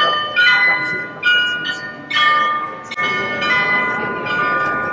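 Bells struck one after another at several different pitches, roughly one strike a second, each note ringing on into the next.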